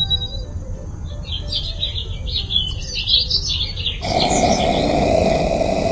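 Small birds chirping rapidly over a low steady rumble. About four seconds in, a louder rushing sound cuts in abruptly and covers them.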